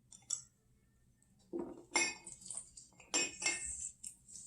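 Small handheld lemon squeezer pressing half a lemon: short clinks and scrapes of the utensil, coming in two main clusters about a second and a half apart.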